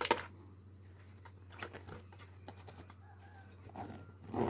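Stainless steel lunch containers clinking as they are pushed into a fabric lunch bag, with a few light knocks, then the bag's zipper being pulled closed near the end.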